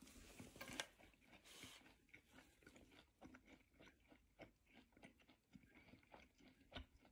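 Faint close-up chewing of a juicy piece of air-dried, aged beef: soft, irregular mouth clicks scattered throughout.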